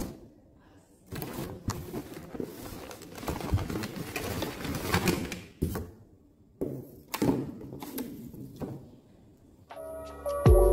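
Plastic food containers and packaging being handled and shifted on a table: rustling and scraping with a few knocks, in three bursts with short pauses between. Background music starts near the end.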